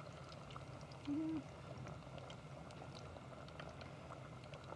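Faint steady sizzle of potato fries deep-frying in hot oil in an electric deep fryer, with scattered small crackles. A brief low hum about a second in.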